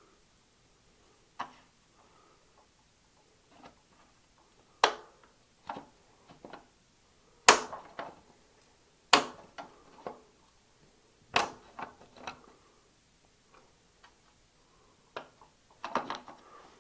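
Hammer strikes on a bottom bracket removal tool, driving a plastic press-fit bottom bracket cup out of the frame: about eight sharp knocks at irregular intervals, a second or more apart, each followed by lighter knocks.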